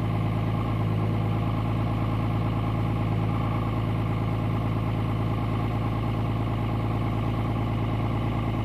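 2003 Dodge Ram's 5.9-litre Cummins inline-six turbo diesel idling steadily, heard from inside the cab. The engine is still cold after sitting overnight at about −16 °C without a block heater.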